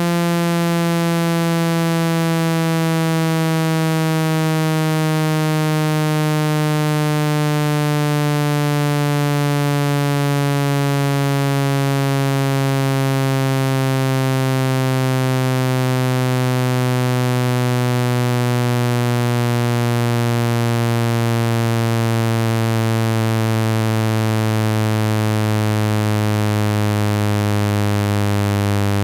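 Phone speaker-cleaning (water-eject) tone: a steady, buzzy synthetic tone, rich in overtones, sliding slowly down in pitch.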